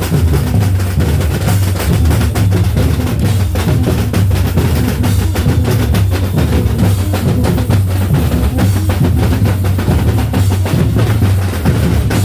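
Batucada samba drum group playing a loud, driving rhythm: deep bass drums pulse under a dense run of snare and higher drum strokes.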